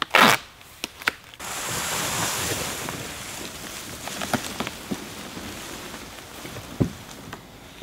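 A large sheet of cardboard panels taped together being handled, lifted and slid over leaf litter. It opens with a sharp bump, then a steady rustling scrape sets in about a second and a half in and slowly fades, broken by a few light knocks.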